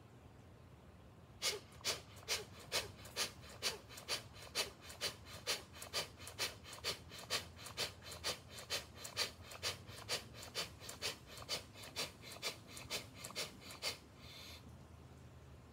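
Rapid, forceful bhastrika/kapalabhati pranayama breathing: a steady run of sharp breath strokes, about two and a half a second, starting a second or so in and lasting some twelve seconds. The set ends near the end with one softer, longer breath.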